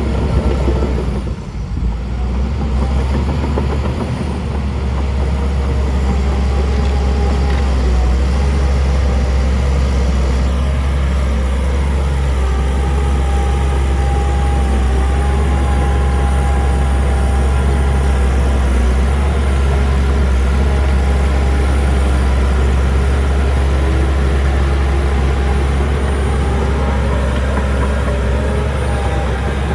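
Heavy diesel earthmoving machinery running steadily with a deep, low rumble, and a faint high whine wavering through the middle.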